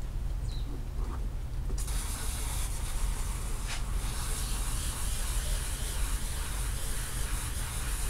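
Pressure washer spraying water onto a rug: a steady low hum from the machine, with the hiss of the spray starting about two seconds in and running on evenly.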